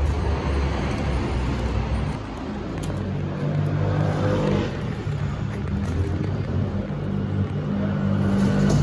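A motor vehicle engine running, a steady low hum that shifts slightly higher about two seconds in.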